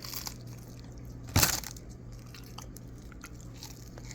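A bite into a crispy fried chicken wing: one loud crunch about a second and a half in, followed by faint chewing clicks.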